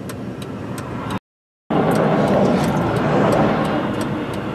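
Highway traffic passing close by: a steady wash of tyre and engine noise. It cuts out completely for about half a second a little over a second in, then comes back louder as a vehicle goes by and eases off.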